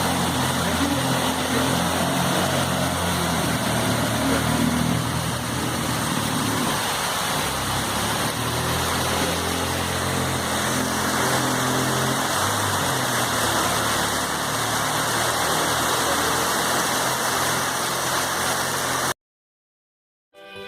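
Heavy rain pouring down steadily, with a vehicle engine running underneath. It cuts off suddenly near the end.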